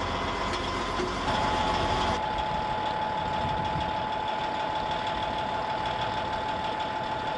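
Caterpillar D8 bulldozer's diesel engine running steadily under load as it inches forward to pull a tow strap tight. A steady high whine joins about a second in.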